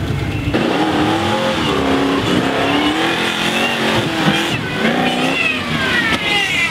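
Alfa Romeo Matta 4x4's engine revving up and down, its pitch rising and falling repeatedly as it works over steep dirt ground. It runs at a lower, steadier note for the first half second.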